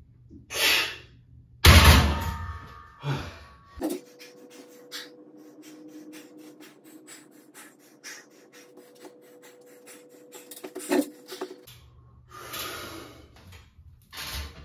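Heavy breathing from a lifter doing barbell overhead presses. About two seconds in, the loaded barbell is set down in the rack's hooks with a loud clank and brief metallic ringing. Sharp breaths come again near the end as he takes hold of the bar for the next set.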